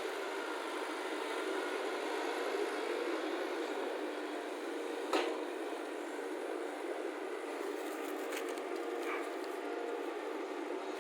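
Excavator engine running steadily, with one sharp metallic knock about five seconds in and a few lighter clicks near the end.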